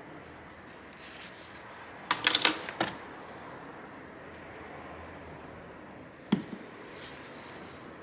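Handling noise from cleaning a laptop GPU die: a short flurry of crinkling clicks about two seconds in, and a single sharp click about six seconds in, as tissue and a plastic squeeze bottle of isopropyl alcohol are handled. A low hiss lies underneath.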